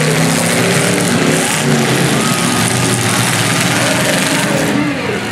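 Several demolition derby cars' engines running and revving at once, with a dense steady wash of noise.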